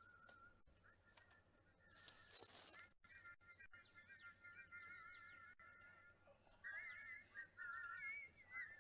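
Cartoon songbird chorus singing faintly: several warbling, trilling voices held around one pitch, with quick falling chirps above them. A brief rushing noise about two seconds in.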